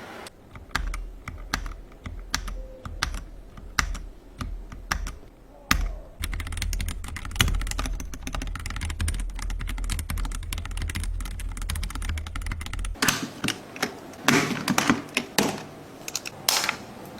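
Typing on a Newmen GM680 wireless mechanical keyboard with Outemu switches. Separate keystrokes click at first, then quicken into a fast run of typing near the end, with a low hum underneath for most of it.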